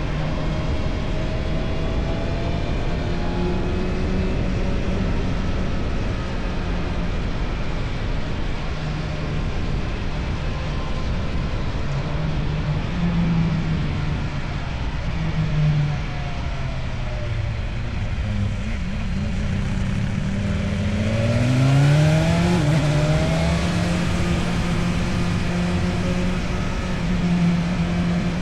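Motorcycle with an Akrapovic aftermarket exhaust running steadily under way. The engine note drops away around eighteen seconds in, then rises again as it accelerates about twenty seconds in.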